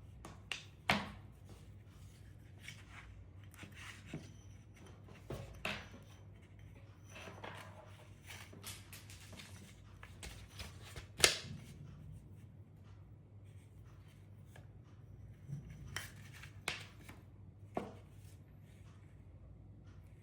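Scattered sharp clicks and knocks of small parts and tools being handled while an optical encoder is taken apart; the loudest knocks come about a second in and about eleven seconds in.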